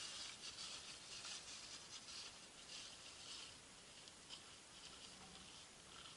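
Faint, irregular pattering and scratching, denser in the first few seconds: small birds pecking and shuffling among sunflower seeds and grain on a feeder.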